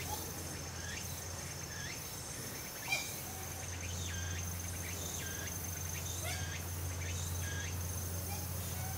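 Steady high-pitched insect trilling, with scattered short high chirps over a low steady hum and a single click about three seconds in.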